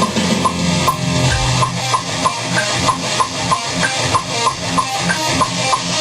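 Heavy metal band music: distorted electric guitar and drum kit playing, with a steady tick about three times a second.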